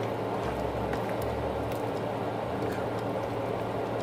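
Pot of mung beans in coconut milk simmering on the stove: a steady bubbling hiss with faint scattered crackles.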